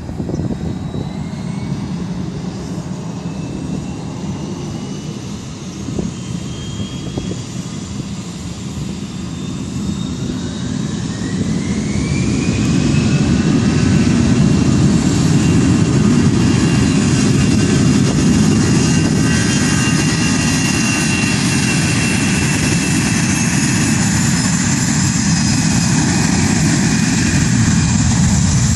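Jet airliner's engines spooling up to takeoff thrust. A whine rises about ten seconds in, then holds steady while the engine noise grows loud and stays there.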